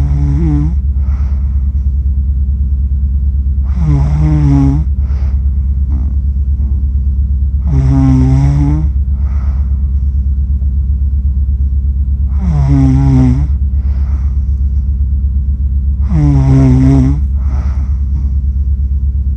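A sleeping person snoring about every four seconds, five times in all. Each snore lasts about a second and has a clear pitch, with fainter breaths in between, over a steady low hum.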